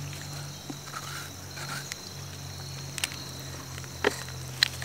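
Insects trilling steadily on one high, even pitch over a low steady hum, with a few sharp clicks in the last two seconds.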